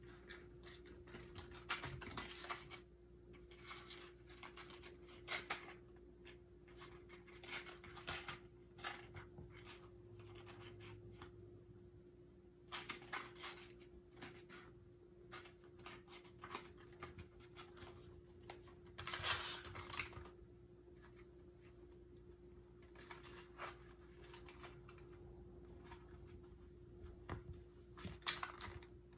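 Kittens playing on a hard floor: their claws and paws scratch, tap and patter in irregular bursts, the busiest scuffle about two-thirds of the way through. A faint steady hum sits underneath.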